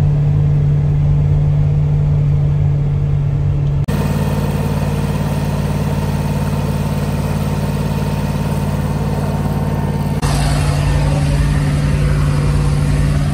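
Engines running steadily in three spliced shots, with an abrupt change of engine note at each cut: a utility vehicle driving along a dirt field track, then an irrigation pump engine running at a center pivot, then the utility vehicle again from inside its cab.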